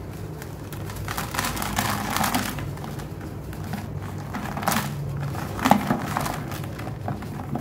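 Dry, dusty sand-cement block being crumbled by hand over a plastic bucket: gritty crunching and crackling as pieces break off and grains pour onto the bucket floor. It comes in several bursts, the longest about one to two and a half seconds in and others near five and six seconds.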